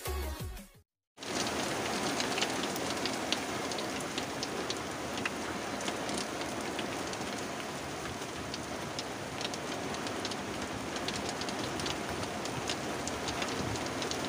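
Heavy rain falling on the surface of a fishpond: a steady hiss dotted with many sharp drop ticks. The tail of electronic intro music fades out in the first second, followed by a moment of silence before the rain comes in.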